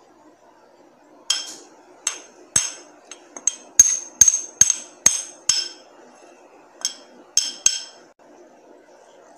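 A metal spoon knocking against a metal cooking pan or bowl about a dozen times, sharp ringing clinks roughly two a second with a short pause partway through, as spices are added to a potato filling.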